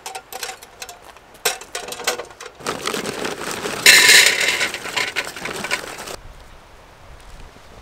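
Metal legs of a small portable kettle grill clicking and knocking as they are fitted, then instant-lighting charcoal briquettes poured from a paper bag into the grill's metal bowl: a rattling rush that is loudest at the start of the pour and stops about six seconds in.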